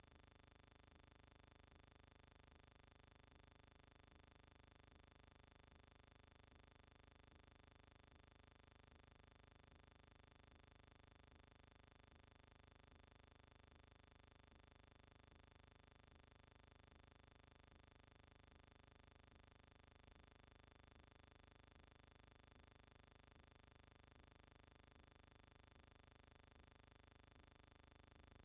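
Near silence: only a faint, steady hum and hiss with no events.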